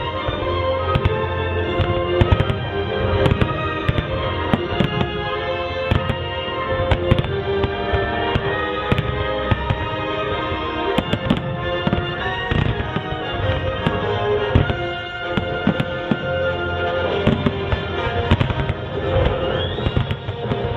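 Fireworks going off in many sharp bangs and crackles, over loud music playing throughout, as in a fireworks show set to music.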